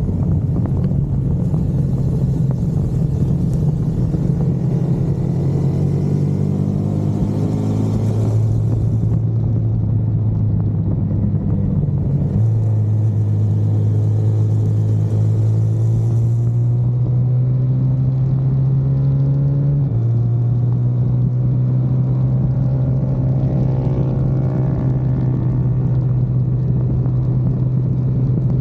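Car engine heard from inside the cabin, pulling hard on a race track, its note climbing slowly and stepping abruptly at gear changes, one clear shift about two-thirds of the way through. A hiss comes and goes over the engine in the first half.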